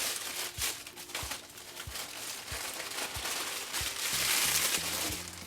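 Plastic snack packaging crinkling and rustling as it is handled and opened, loudest about four seconds in.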